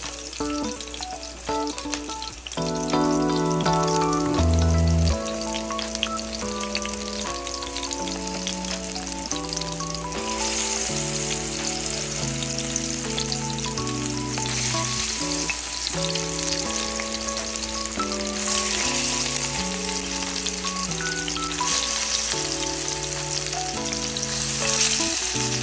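Patties frying in oil in a stainless steel pan, a steady sizzle that gets stronger in stretches from about ten seconds in. A melody plays over it.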